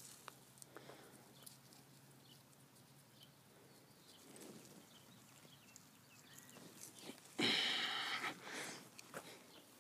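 Faint rustling and small clicks of hands working seeds into loose compost. About seven seconds in comes a louder, rough crunching lasting about a second, then a shorter one: boots stepping on wood-chip mulch.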